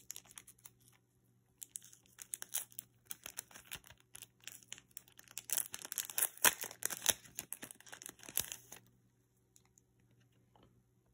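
Thin plastic packaging sleeve crinkling and crackling as a SIM card is pulled out of it by hand, a dense run of sharp crackles that stops a couple of seconds before the end.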